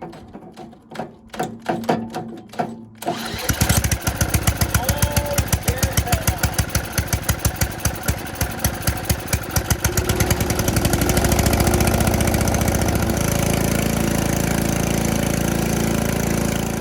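Old Allis-Chalmers snowblower engine being turned over by a cordless drill through a socket on its crank, with a rapid, regular pulse of compression strokes. About ten seconds in, the pulsing smooths into a steady running sound, which cuts off abruptly near the end.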